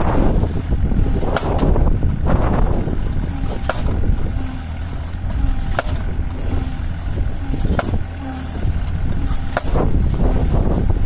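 Takeuchi TB216 mini digger's diesel engine running under load, with five sharp knocks about two seconds apart as a post driver's 55 kg weight drops onto a wooden fence post, driving it in.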